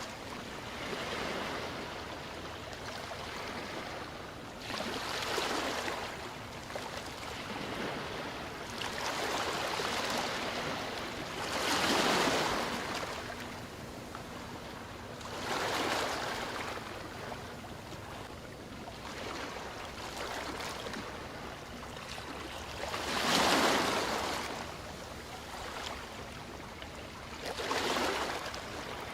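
Ocean waves breaking and washing in, the surf noise swelling and fading every few seconds, with two larger waves, one near the middle and one later on.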